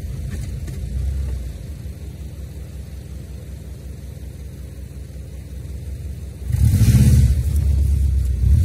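Subaru Outback VDC's flat-six engine running at low revs with the front tyre dug into loose dirt, then revving up sharply about six and a half seconds in as the car works to climb out under traction control.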